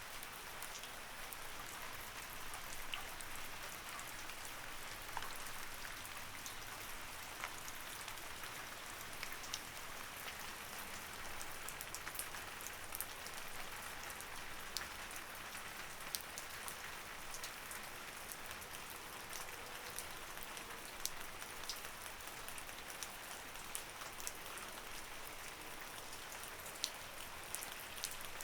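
Light rain falling steadily, a soft even hiss scattered with many individual drops ticking sharply on a surface.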